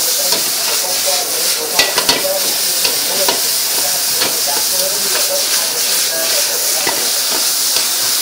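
Food sizzling and hissing in a hot metal wok as it is stir-fried with a metal ladle. The ladle clacks against the wok a few times about two seconds in.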